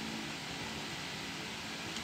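Steady, even hiss of background noise, like a fan running, with one faint click near the end.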